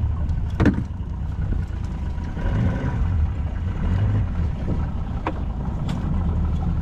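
Boat's outboard motor idling with a steady low hum, with a few sharp knocks, the loudest about half a second in.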